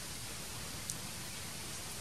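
Steady, even outdoor background hiss with no distinct source, broken by one brief faint click about a second in.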